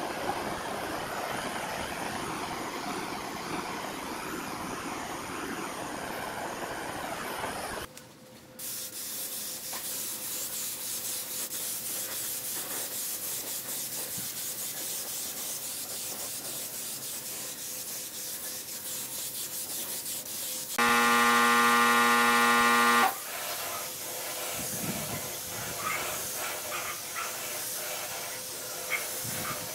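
A butane torch flame roaring steadily as it scorches the wood. It breaks off suddenly and gives way to the steady hiss of a compressed-air spray gun spraying the bench. About two-thirds of the way through, a loud buzzing tone of steady pitch sounds for about two seconds.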